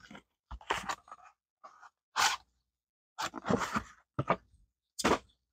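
A series of short crinkles and scrapes of packaging: the Chicken & Dumplings retort pouch of an MRE being pulled from its cardboard carton and handled.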